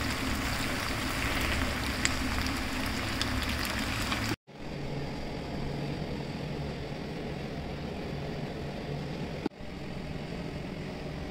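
Steady hiss with a few faint clicks, then, after an abrupt cut, a quieter steady mechanical hum with a low drone, broken once more by a brief cut near the end.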